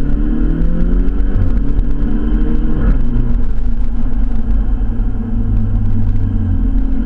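Volkswagen Golf GTI Mk6's turbocharged 2.0-litre four-cylinder accelerating through a 2.5-inch stainless steel catback exhaust. The engine rises in pitch for about three seconds, then a DSG upshift cuts in with a short exhaust 'fart', and the engine drops to a lower, steadier pitch.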